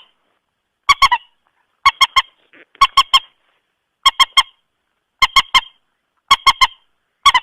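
Common moorhen (mandar batu) lure call: bursts of two or three short, sharp honking notes, repeated about once a second.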